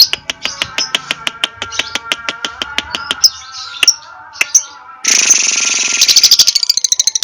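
Lovebird chattering in sharp, rapid clicking notes, then about five seconds in breaking into a loud, fast, continuous stuttering trill, the long chatter song that lovebird keepers train for.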